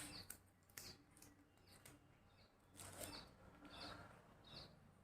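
Near silence, with faint short high chirps repeating about every three-quarters of a second and a soft click at the start.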